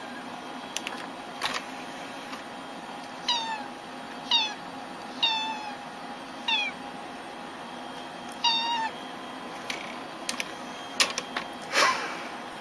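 Orange-and-white domestic cat meowing: five short calls, each falling in pitch, about a second apart. A few sharp knocks come near the end, over a steady background hum.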